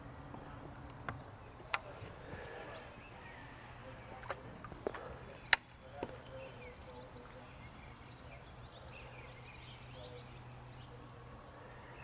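Fishing reel being cast toward a bass bed: a high whir of line paying off the spool for about two seconds, starting around three and a half seconds in, and sharp reel clicks, the loudest just after the whir. Under it, a faint steady low hum.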